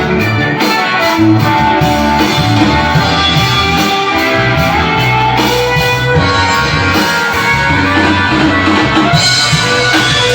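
Electric guitar played through a Q-pal overdrive pedal, a continuous run of overdriven notes and chords over a moving bass line.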